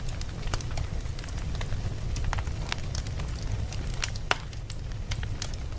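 Fire burning with a steady low rumble and irregular sharp crackles and pops, a sharper pop a little after four seconds in.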